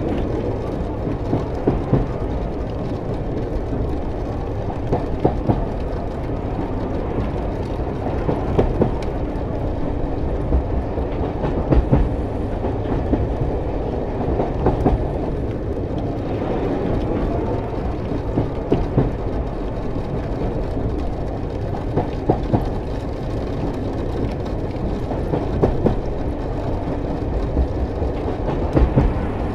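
Double-stack container freight train rolling past: a steady rumble of wagons and wheels, with sharp clanks every few seconds.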